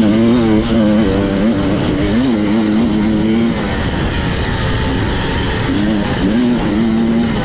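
Two-stroke enduro motorcycle engine revving high, its pitch dipping sharply and climbing back each time the throttle is chopped and reopened. The high engine note drops away for a couple of seconds midway, then returns before the end.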